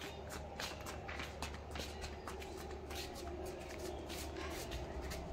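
Faint light footsteps of a toddler's shoes tapping and scuffing on a concrete floor, several small steps a second, over a low steady hum.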